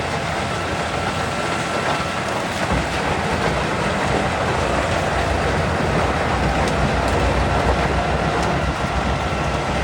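A large 800-horsepower wood chipper running and chipping wood, a loud steady mechanical rumble; the low rumble gets heavier about three seconds in.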